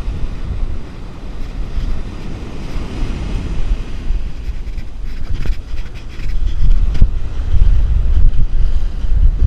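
Wind buffeting the microphone over the wash of small surf running up the beach, with splashing from a hooked dusky flathead in the shallows. The wind rumble grows stronger about two-thirds of the way through.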